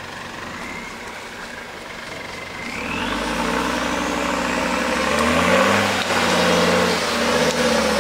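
Off-road buggy's engine coming up to load about three seconds in and revving hard, its pitch rising and falling as the buggy climbs up out of a muddy hollow.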